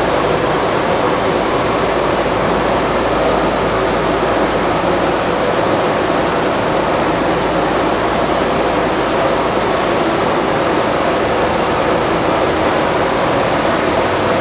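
Aerosol spray-can production line machinery running: a loud, steady, even rushing noise with no distinct beats or knocks.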